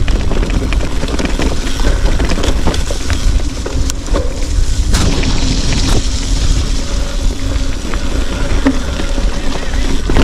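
Wind buffeting the microphone in a steady low rumble, with scattered clicks and knocks over it.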